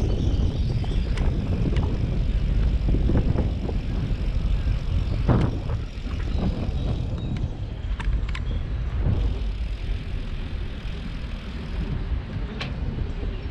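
Wind rumbling on the microphone of a moving bicycle, with the tyres rolling over the wet wooden planks of a bridge deck and scattered sharp clicks and knocks.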